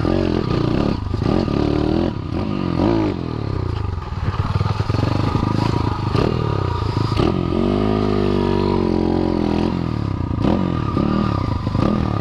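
Small dirt bike's engine revving up and down repeatedly while being ridden over rough dirt and gravel, with rattles and clatter from the bike. The revs hold fairly steady for a couple of seconds past the middle.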